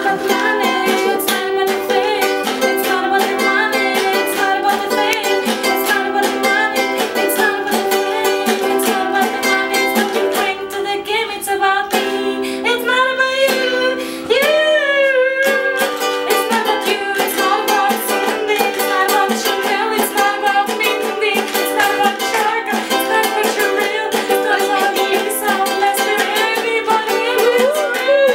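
A ukulele strummed in a steady rhythm while a woman sings along, in a small tiled bathroom.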